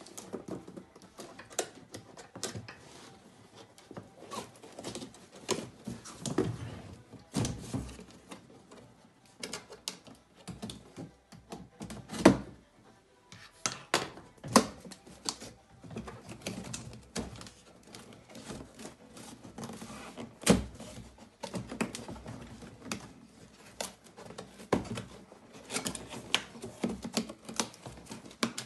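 A cardboard scooter box being opened and handled by hand: irregular rustling, scraping and tapping of the cardboard, with scattered knocks. The loudest knock comes about 12 seconds in and another about 20 seconds in.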